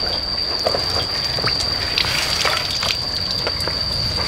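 Water splashing and trickling, with scattered short splashes, over a steady high-pitched whine.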